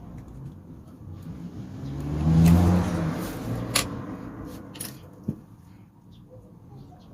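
A motor vehicle passing by, its engine note rising to a peak and fading away over a few seconds, with a few sharp clicks along the way.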